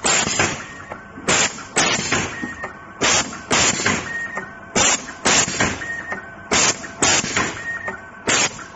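Automatic ribbon flat cable slitting, cutting and stripping machine cycling on a 16-way flat cable: short, sharp mechanical strokes in pairs about every second and a half as it feeds, cuts and strips each length, with a faint motor whine between strokes.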